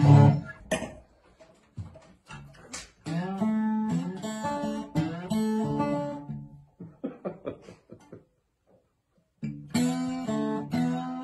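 Guitar music: strummed chords and single plucked notes, dropping out to near silence for a moment about eight seconds in before picking up again.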